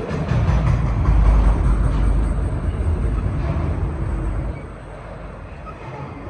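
Freight train of auto-rack cars rolling past, a steady low rumble with wheel and car noise that eases off about four and a half seconds in.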